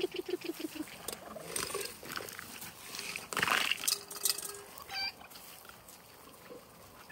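Backyard chickens clucking and calling while they crowd in to peck at tossed lobster shells: a quick run of clucks that fades out about a second in, scattered taps, and a brief higher squawk a little past the middle. Around the middle there is a short rush of clatter as shells are tossed down from a metal bowl.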